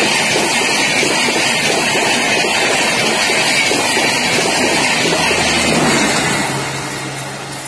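Rajdhani Express LHB coaches passing at full speed: a loud, steady rush of wheels on rail and air, with fast clatter. About six seconds in, the louvred power car at the tail goes by with a steady engine hum that drops slightly in pitch, and the noise fades as the train moves away.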